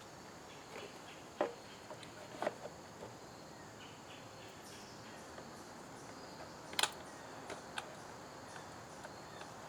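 A few light, sharp clicks and taps of hands and tools working on a mini bike, the loudest about seven seconds in, over a faint steady chirring of insects.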